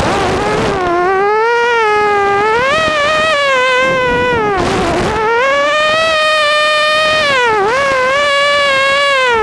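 Racing mini quadcopter's brushless motors whining, the pitch rising and falling with the throttle. The pitch dips sharply three times, just after the start, near the middle and again near the end, with a rush of air noise at each dip.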